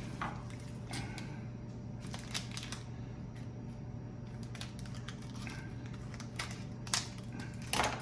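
Packaging of a trading-card box being opened and handled by hand: scattered soft crinkles, taps and clicks, with a couple of sharper clicks near the end. A steady low hum runs underneath.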